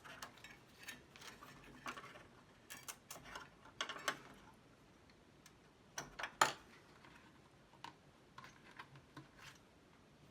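Scattered light clicks and taps of small electronic parts being handled as the 6502 processor chip is pulled from its socket and fitted into the Super PET processor board. The clicks come in small clusters, the loudest about six seconds in.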